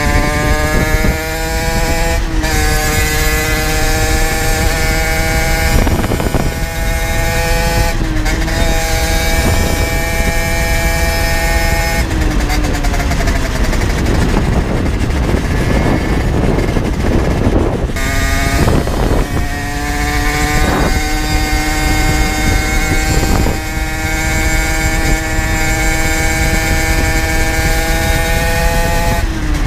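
Generic Trigger SM 50's 50cc two-stroke engine through an aftermarket Turbokit exhaust, pulling hard under way: the pitch climbs and drops back at each gear change. In the middle the throttle comes off and the engine note falls away for several seconds before it pulls up again and holds a steady high note.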